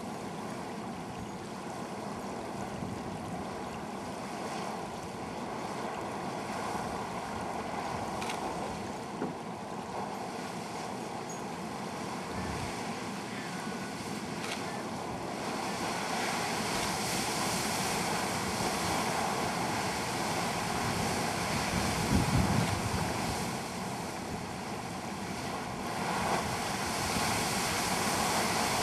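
Great Fountain Geyser erupting: a steady rush and splash of boiling water bursting from its pool, growing louder about halfway through. Wind buffets the microphone.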